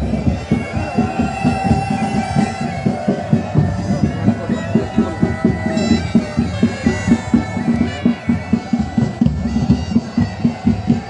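Pipe band playing: bagpipes sounding a melody over their steady drone, with a regular drumbeat.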